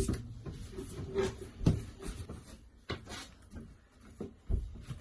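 Flat-pack drawer panels knocking and clicking as they are pushed together onto wooden dowels and screws, with about four sharper knocks among softer handling noise.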